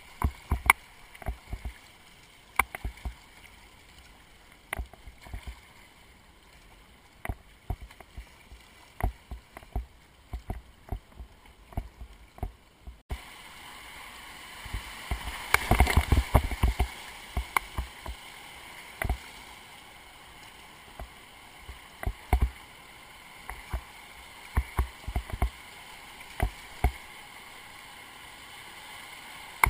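Whitewater rushing around a kayak running a river rapid, with frequent sharp splashes and knocks. The rush grows louder about halfway through, with a loud surge of splashing a few seconds later as the boat drops through waves.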